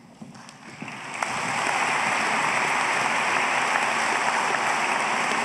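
Audience applauding, the clapping swelling over about the first second and then going on steadily.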